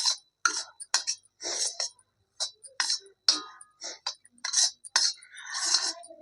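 A spoon scraping and clinking against a pan, about two strokes a second, while stirring ground sattu, makhana and dry-fruit powder into ghee for laddoos. Near the end one longer scrape.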